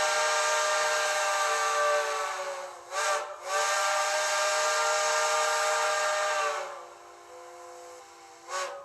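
Recorded multi-chime steam locomotive whistle played by a TCS WOWSound DCC sound decoder through the small speaker in an HO-scale model's tender. It blows a long blast, breaks briefly with a short toot about three seconds in, then blows another long blast. After that it trails off more quietly and ends with a quick toot.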